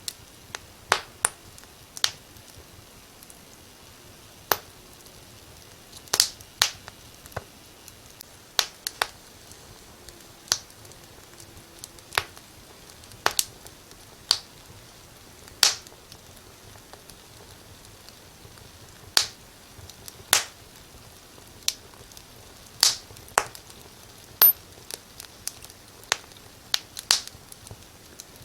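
Wood fire crackling in a fireplace: sharp, irregular pops and snaps, some in quick pairs, over a faint steady hiss.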